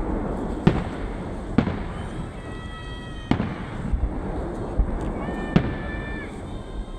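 Fireworks salute: several sharp booms of shells bursting over a continuous rumbling crackle, with high steady whistling tones lasting about a second twice.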